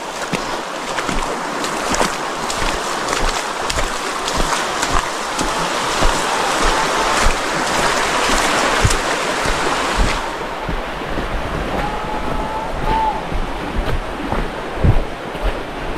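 Shallow rocky river running over stones, with irregular splashing and wind buffeting the microphone. A faint short tonal call sounds about three-quarters of the way through.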